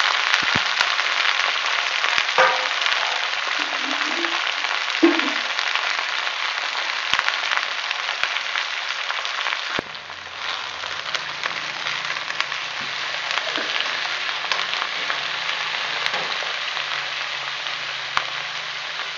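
Chopped cabbage sizzling as it fries in hot oil in a wok, a steady crackling hiss with a few sharp taps of the spatula stirring it. The sizzle drops a little about halfway through.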